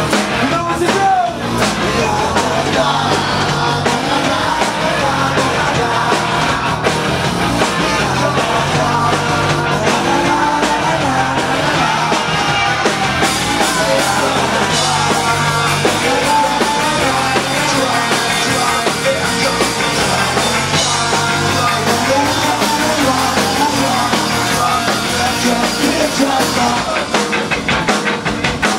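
A live rock band playing loud: electric guitars, bass and a drum kit.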